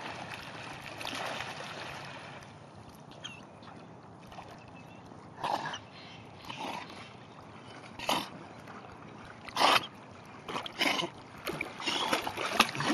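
Water splashing as a Bernese mountain dog swims in a river with a stick in its mouth: a broad rush of splashing at first, then quieter water with several short sharp splashes, coming closer together near the end.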